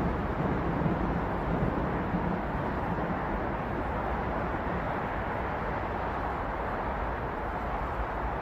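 Steady city traffic noise: a constant wash of cars and tyres on a busy multi-lane road, with no single vehicle standing out. A low hum fades away in the first few seconds.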